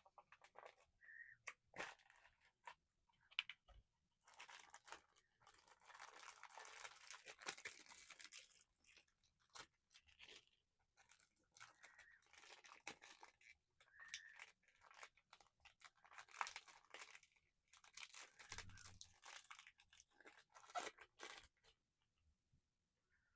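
Soft, irregular crinkling and crackling of plastic packaging as a blind-box figure's plastic blister pack is handled and opened by hand.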